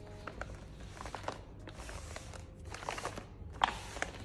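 Foil-lined meal pouches crinkling and rustling as hands press and shift them on a table, with scattered sharp crackles; one louder crackle comes near the end.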